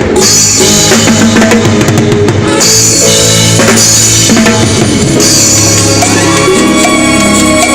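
Timbales and drums playing a continuous groove of rapid strikes and rimshots, with sustained pitched notes underneath.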